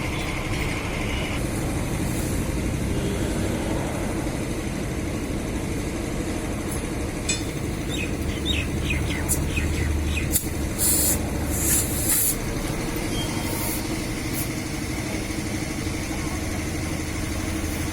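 A steady motor hum, with several short hisses of air past the middle.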